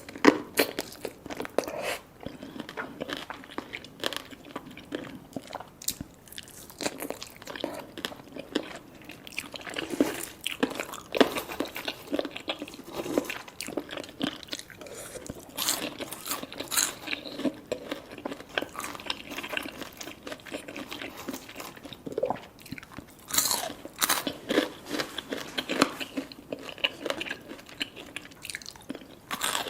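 Close-miked eating: a person biting and chewing crispy fried food, with dense, irregular crunches throughout.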